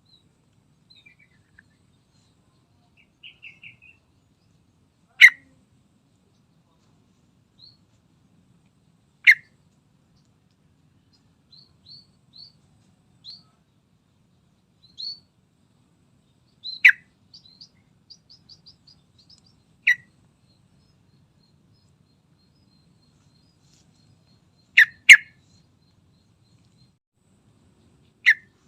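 Sooty-headed bulbul (trucukan) giving sharp, very short call notes every few seconds, two of them in quick succession near the end. Soft high chirps and a couple of quick trills come in between.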